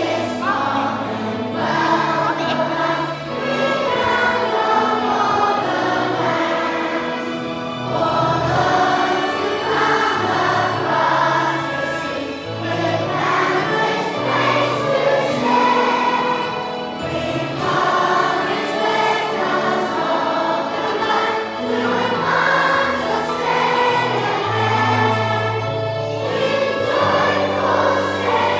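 Many voices singing a hymn together over instrumental accompaniment, in sustained phrases over a moving bass line.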